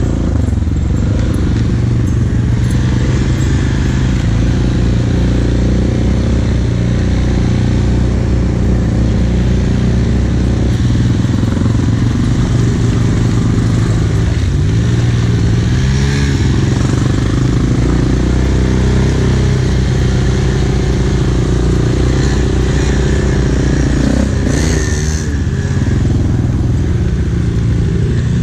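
ATV engine running steadily as the quad rides along a dirt trail, its revs rising and falling a little in the middle and again near the end.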